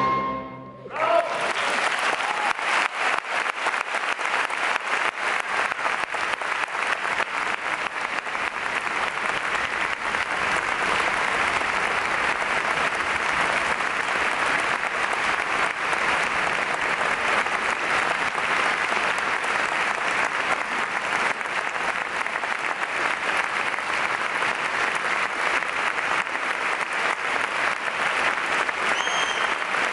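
The orchestra's final chord dying away in the hall's reverberation, then about a second in a large audience breaks into steady applause that carries on. A short high tone sounds briefly near the end.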